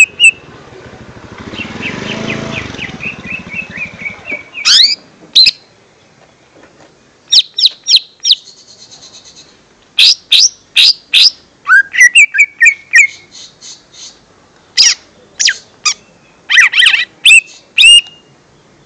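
Cucak ijo mini leafbird calls played as a lure recording: loud, sharp chirps and short rising whistles around 2–3 kHz, in quick bursts separated by short gaps. A softer rushing noise sits under the calls from about one to four seconds in.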